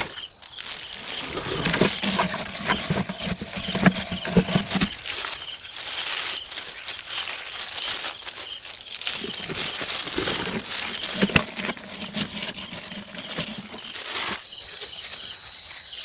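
Irregular knocks and taps, like hands working with wood or bamboo, over a steady high whine.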